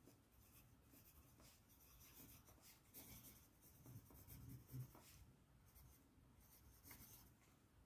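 Faint scratching of a pencil writing cursive on paper, in a series of short strokes.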